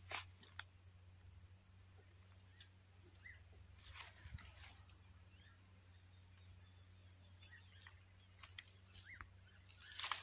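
Faint steady high-pitched insect trilling, with a few soft crunches of footsteps on dry ploughed clods about four seconds in and near the end.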